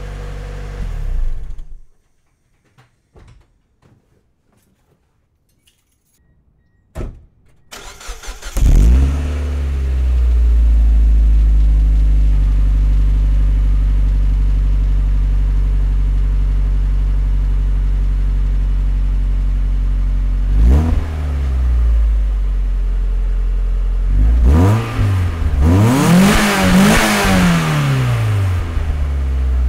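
NB Mazda Miata four-cylinder engine idling through its old single stock muffler, then, after a short silent gap, starting up and idling through a newly fitted Cobalt dual exhaust. Near the end the throttle is blipped and revved a few times, the pitch rising and falling.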